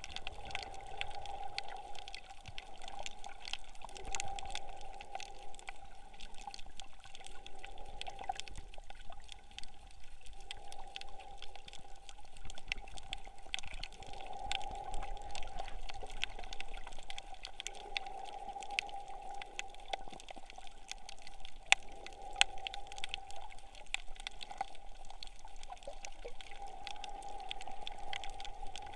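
Muffled underwater sound: a hum that swells and fades every few seconds, with many faint scattered clicks and crackles and two sharper clicks near the end.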